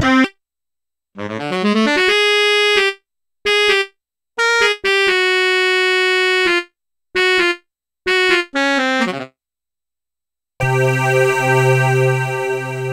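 E-mu Proteus 1 XR sound module playing its "Sax Object" preset: single notes, first a quick rising run, then a held note and a string of shorter ones. Near the end its "Decay Pad" preset comes in as a sustained chord over a low bass note, with a high shimmer.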